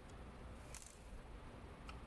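Faint light clicks of plastic inkjet printer heads being handled in a plastic bin, a few times over quiet room tone.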